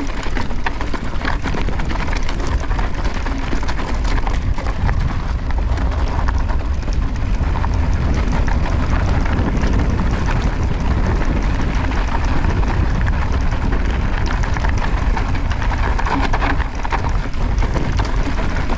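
Mountain bike ridden fast over rough trail, heard from an on-bike action camera. Wind rumbles on the microphone, and the tyres and rattling bike make a dense, continuous patter of small knocks.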